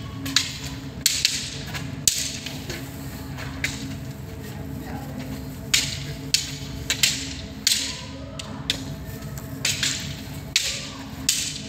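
Wooden sticks clacking against each other in a stick-fencing bout: sharp, irregular strikes, sometimes two or three in quick succession.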